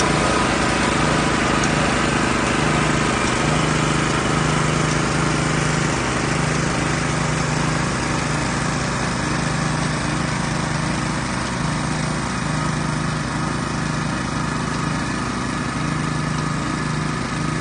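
Small petrol engine of a ride-on road-marking machine running steadily while the machine lays paint, growing slightly fainter as it moves away.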